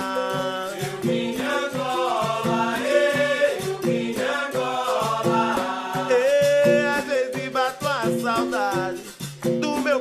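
Capoeira song playing as background music: a steady percussion beat under melodic lines that glide up and down, between sung verses.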